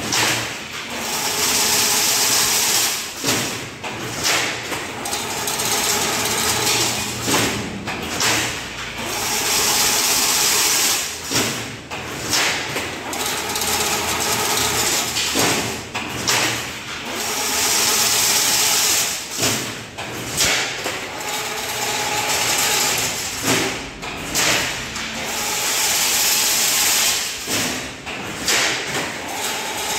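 Fully automatic chain link fence machine running, weaving wire into mesh in a cycle that repeats about every four seconds. A high hiss swells and fades about every eight seconds.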